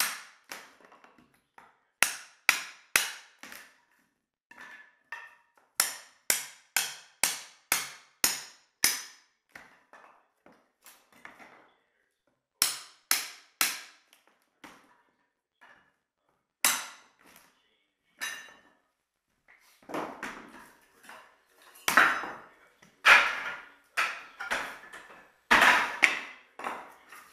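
A pry bar levering stapled hardwood floorboards up off the subfloor: clusters of sharp wooden cracks and knocks with short pauses between them. The loudest are near the end, as loose boards clatter onto the floor.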